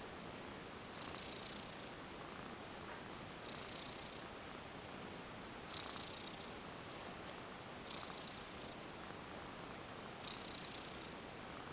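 Domestic cat purring steadily while relaxed under a massage, with a brighter swell about every two seconds.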